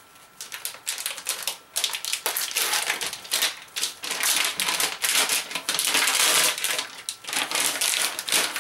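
The wrapper of a one-pound Nestlé Crunch bar crinkling and tearing as it is pulled open by hand. It makes a dense run of crackles, loudest midway.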